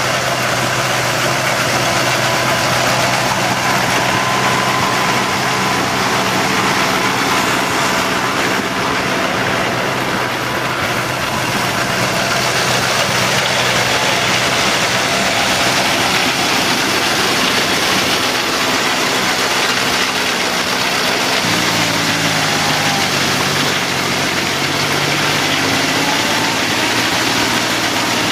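Feucht OB Future II fallen-fruit harvester at work: an engine running steadily under a constant clatter and hiss of the pickup and cleaning conveyor handling apples, leaves and grass. About three quarters of the way through, the engine note drops and then wavers up and down.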